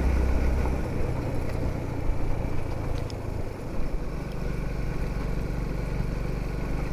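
Motorcycle engine running steadily while riding, its note shifting slightly about a second in.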